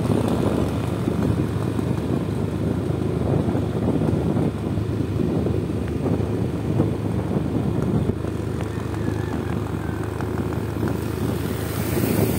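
Steady low rumble of a moving vehicle's engine and tyres, heard from on board while travelling along the road.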